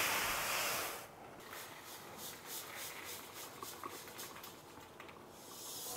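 A mass of small stainless-steel wire spirals of SPN distillation packing poured from a plastic colander onto a baking tray, making a rustling hiss for about the first second. After that come fainter scattered clicks and rustles as the pieces settle and are handled.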